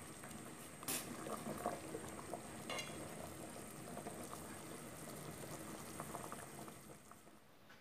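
Pot of taro and pork soup bubbling at a simmer, a faint steady bubbling with small pops, with one sharp knock about a second in, likely the ladle against the pot; the bubbling drops away near the end.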